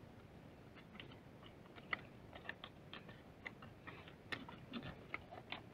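Faint, irregular small clicks and ticks, a couple a second, over low background hiss.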